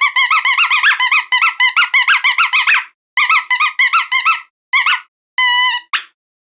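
Squeaky dog toy squeezed over and over in quick runs of short squeaks, each bending up and down in pitch. The squeaks break off briefly about three seconds in, then come more sparsely, with one longer, steady squeak near the end.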